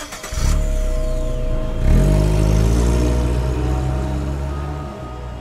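Car engine sound effect: an engine comes in, revs up sharply about two seconds in, then runs on steadily and slowly fades.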